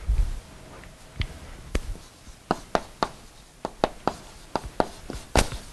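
Chalk writing on a blackboard: a string of short, sharp, irregular taps as the chalk strikes the board, coming faster in the second half, the loudest near the end.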